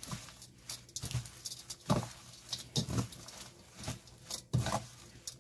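Hands kneading and tossing seasoned young prickly lettuce leaves in a stainless steel bowl: leaves rustling and squishing, with irregular soft pats and brushes about every half second to second.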